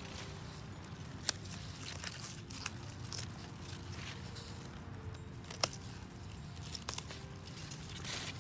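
Small scissors snipping the stalks of purple bok choy: three sharp snips spread through, with lighter crackling of leaves and stems being handled, over a steady low rumble.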